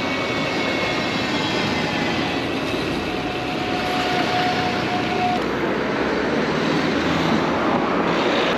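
Steady rush of wind on the microphone, mixed with rolling noise from a mountain bike on the move. A faint steady whine comes in about three seconds in and stops about two seconds later.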